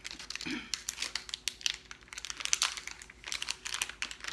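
Plastic packaging crinkling and crackling irregularly as it is handled and opened.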